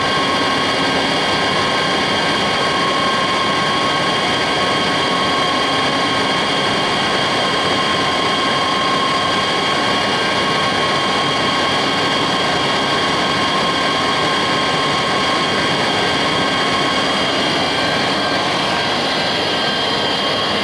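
Bridgeport EZ Path SD lathe running its 10 hp direct-drive spindle at a steady speed: an even mechanical whine of several held tones over motor and drive noise.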